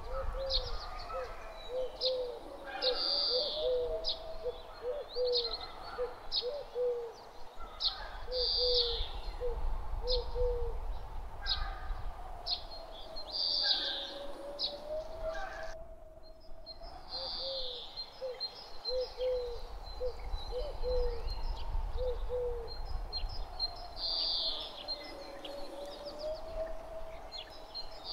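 Forest nature ambience: birds calling with short high chirps every couple of seconds and runs of quick lower notes, over a steady low breeze rumble and a soft whistling tone that slowly rises and falls.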